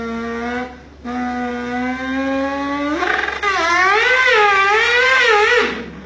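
A man imitating a Mazda RX-7's engine with his mouth: a steady engine note with a short break under a second in, then a higher, wavering rev from about three seconds in that drops away just before the end.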